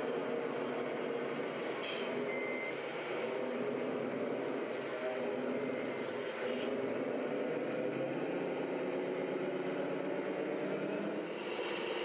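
Scale RC trucks running with their engine sound modules playing diesel engine sounds, with a brief high electronic beep about two seconds in and a fainter one near six seconds.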